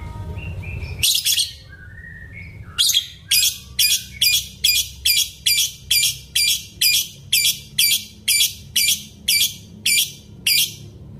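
Caged lovebird calling: a few short notes, then a long, regular run of sharp, high-pitched chirps about three a second that stops shortly before the end.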